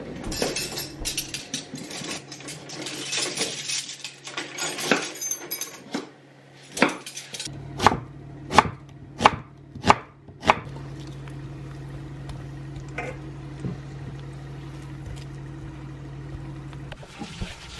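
Kitchen knife cutting an onion on a wooden cutting board: a run of quick clicks and rustling, then about six sharp chops roughly two-thirds of a second apart. A steady low hum carries on after the chopping stops.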